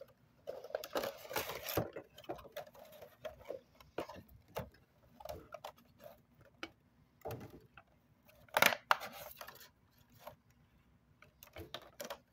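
A cardboard Funko Pop box being opened by hand and the figure's clear plastic tray being handled: rustling and scattered clicks and taps, with the loudest rustle about nine seconds in.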